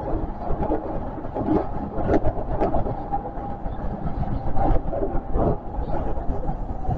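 Osaka Metro 400 series subway train running through a tunnel, heard from inside just behind the cab: a steady rumble of wheels on rail with a held whine and scattered short clicks.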